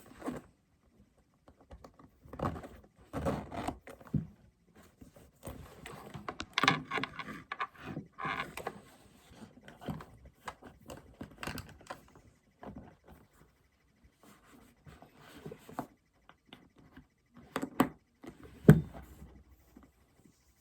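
Unboxing handling noise: packaging and a handbag being handled, with rustling, scrapes and scattered clicks and taps, and a heavier knock near the end.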